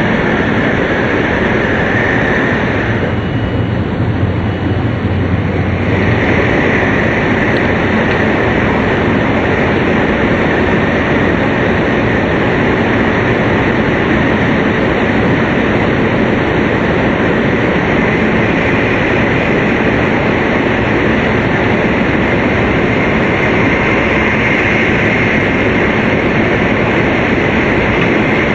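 Running noise of a Tohoku Shinkansen Hayate bullet train at speed, heard from inside the passenger cabin: a loud, steady rushing rumble with a hiss on top. About three seconds in, the hiss drops away and the low rumble swells for about three seconds, then the earlier sound returns.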